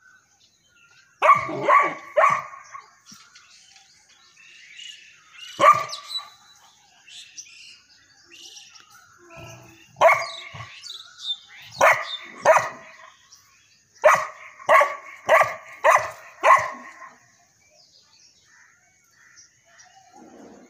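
St. Bernard puppy barking: about a dozen short barks in clusters, three quick ones, then single barks and a pair, then a run of five in quick succession.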